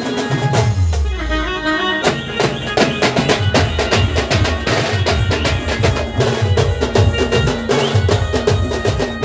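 Band music: fast, steady drumming under a held melody line, with a low falling boom about a second in before the drum strokes pick up again.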